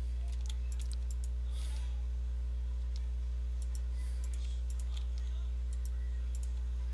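Steady low hum with a stack of even overtones running unchanged throughout, with scattered sharp computer mouse and keyboard clicks as bezier points are selected and grabbed.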